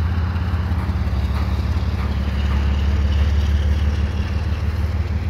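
Double-stack container well cars of a freight train rolling past slowly, a steady low rumble of steel wheels on the rails.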